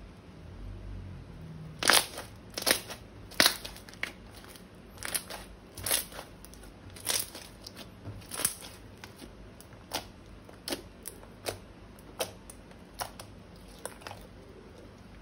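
Slime being squeezed and pressed by hand, giving a series of sharp pops and crackles. The loudest three come about two to three and a half seconds in, then smaller, quicker ones follow.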